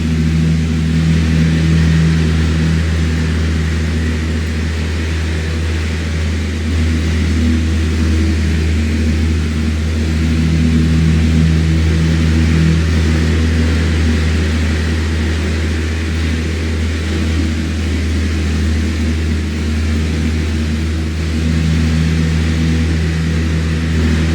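Electric fan running steadily: a low motor hum with a faint tone that swells and fades slowly, under an even rush of moving air.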